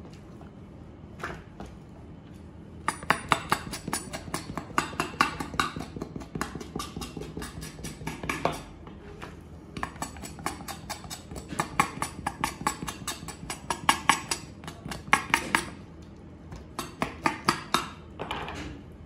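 Kitchen knife blade scraping across a squid's mantle on a plastic cutting board in rapid strokes, several a second, in three runs with short pauses.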